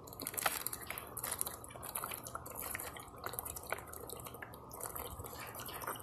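A person chugging water from a thin plastic water bottle: quick gulping and glugging, with irregular clicks and crackles.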